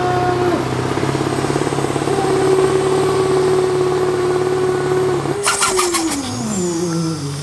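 Turbocharged truck-pulling diesel engine running flat out under load with a steady high note. About five and a half seconds in, a short burst of rapid clicks sounds, then the engine's pitch falls steadily as it winds down.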